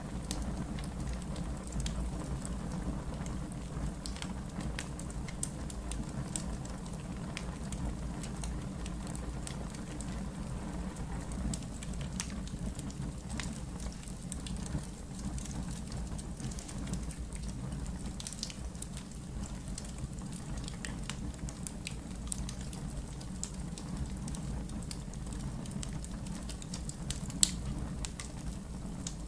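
Wood logs burning in a fireplace: a steady low rumble of flames with scattered crackles and pops, and one sharp louder pop near the end.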